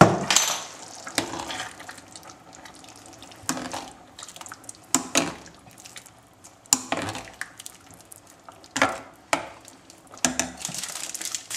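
Thick bolognese sauce in a stainless steel pot being worked with a plastic spatula: separate wet squelches and scrapes every second or two.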